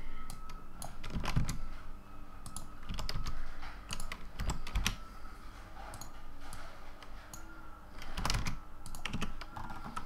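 Computer keyboard keys pressed in short, irregular taps, the scattered key presses of working keyboard shortcuts rather than steady typing.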